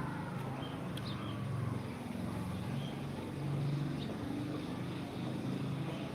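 A low, uneven motor-like rumble, louder around the middle, with a few faint high bird chirps over it.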